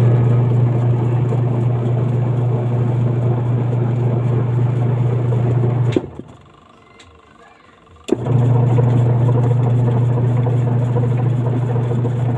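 Washing machine wash motor running with a loud, steady electric hum. It cuts off with a click about six seconds in and starts again with a click two seconds later.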